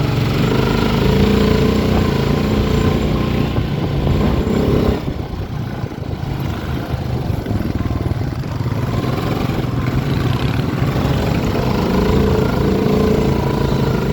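Honda ATV engine running under throttle. It eases off about five seconds in, then builds back up.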